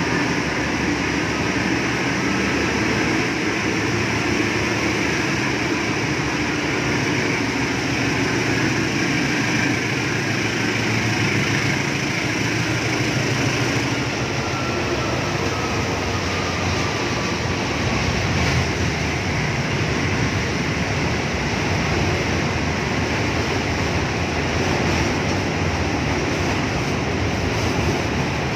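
A freight train of fuel tank wagons pulling out and rolling past on the rails, making a steady, loud rumble. About halfway through, a faint whine falls in pitch.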